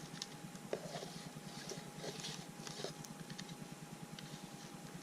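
Scraping and clicking of dirt and small rocks as a target is dug out of rocky ground, with a faint steady tone underneath.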